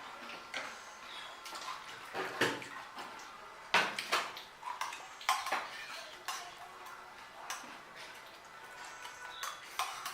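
Pani puri being eaten close to the microphone: crisp puri shells crunching and wet chewing of the spiced water, with irregular sharp clicks and crackles, the loudest about two and a half and four seconds in.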